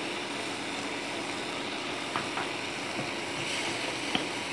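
Sliced onions and chopped garlic sizzling steadily in melted butter in a frying pan over low heat, with a couple of light clicks near the middle and the end.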